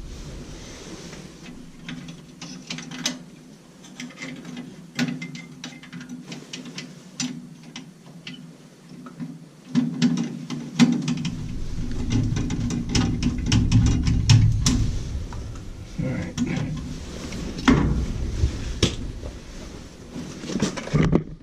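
Clicks, knocks and clatter of hand tools and metal parts being handled inside a furnace cabinet, over a steady low hum; a deeper rumble joins about halfway through.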